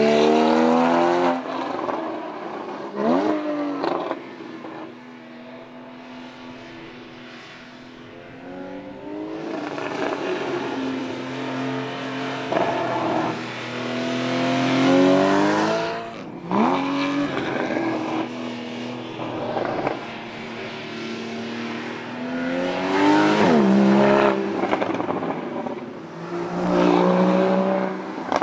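Porsche Boxster GTS's 3.4-litre flat-six engine being driven hard, the revs climbing and dropping several times with quick, sharp sweeps in pitch at the gear changes and throttle blips.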